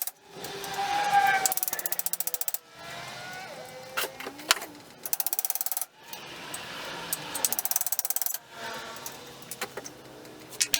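Rapid ratcheting clicks in about five bursts, each a second or so long, with metal squeaks and scraping between them and a sharp knock about four and a half seconds in, as a pin is worked out of a vintage gumball machine's mechanism.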